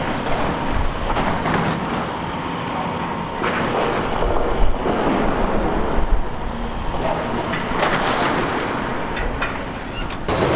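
Liebherr R 960 demolition excavator tearing into a collapsed warehouse: corrugated sheet metal and steel scrap crashing and clattering over the machine's running engine, with the loudest crashes about halfway through.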